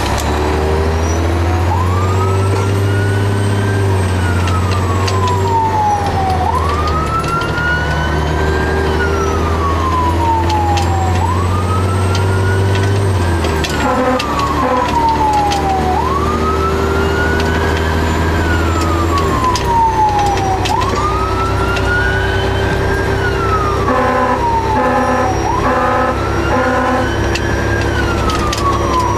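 Fire engine siren wailing, heard from inside the cab over the truck's engine drone. Each cycle rises quickly and falls slowly, about every four and a half seconds. Twice a pulsing horn sounds in short bursts.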